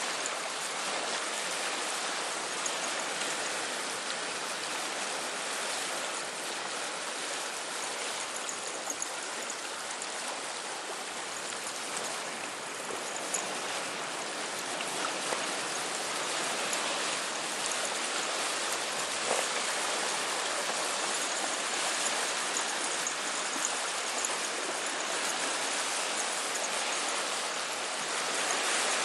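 Small river waves lapping and washing against a stony shore, a steady wash with a few faint ticks.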